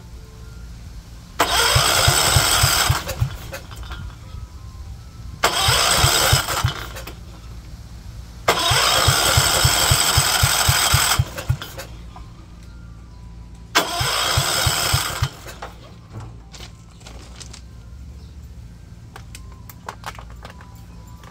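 John Deere 214 garden tractor's single-cylinder Kohler engine being cranked by its electric starter four times, in bursts of one and a half to nearly three seconds with an even chug of compression strokes, and not catching on a cold start. A few light clicks and knocks follow near the end.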